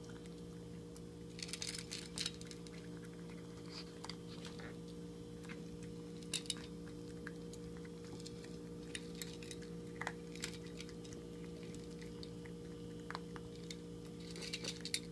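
A teacup poodle puppy eating dry kibble from a stainless steel bowl: irregular crunches and clicks as pieces knock against the metal, in scattered clusters, over a steady low hum.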